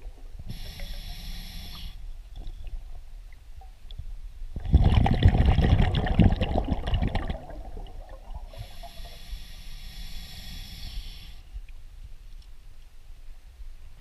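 Scuba diver breathing underwater through a regulator. There is a hissing inhale through the demand valve, then a loud rush of exhaled bubbles lasting about three seconds, then a second hissing inhale.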